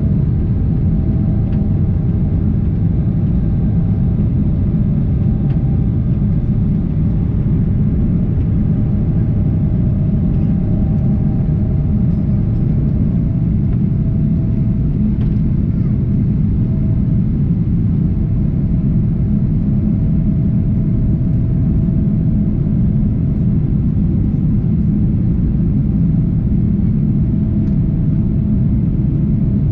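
Cabin noise of a Boeing 777-300 climbing after takeoff: a steady, loud rumble of engines and airflow, with a faint steady tone held above it.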